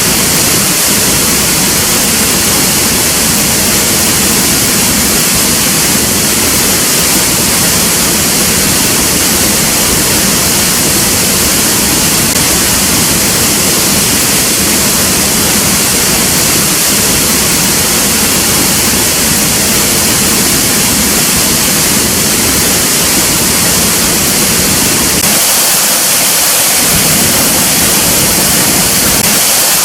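Waterfall rushing, a loud, steady, unbroken hiss of falling water.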